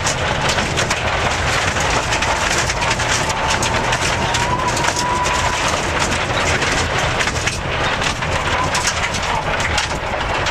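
Rally car driven hard on a gravel stage, heard from inside the cabin: a steady din of engine, drivetrain and tyres, with loose stones constantly pinging and rattling against the underbody.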